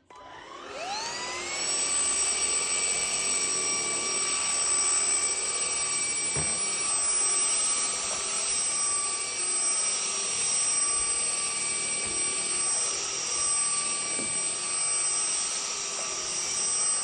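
Homeika cordless vacuum switched on, its motor whine rising in pitch over the first second or two. It then runs steadily with a high whine over a rush of air.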